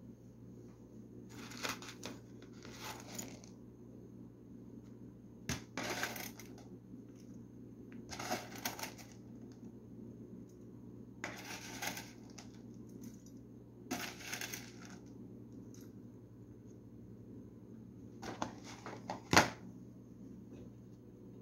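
Crisp shoestring potato sticks (batata palha) rattling in a plastic tub as they are shaken out in about six short bursts, with a sharp knock near the end.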